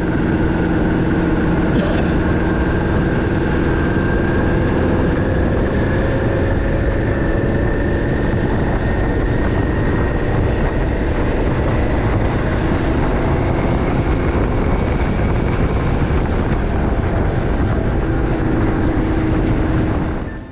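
Kawasaki Vulcan 400 motorcycle riding at steady speed: engine drone under heavy wind and road noise, the engine note rising slowly over the stretch.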